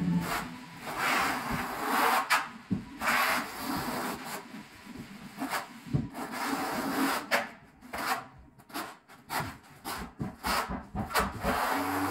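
Steel trowel scraping mortar across a concrete floor in repeated strokes, longer sweeps at first, then short quick strokes in the second half.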